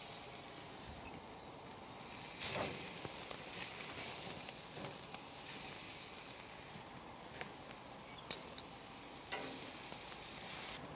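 Eye fillet steaks sizzling steadily on a hot barbecue grill, basted with herb oil, with several brief clicks and scrapes as metal tongs turn them.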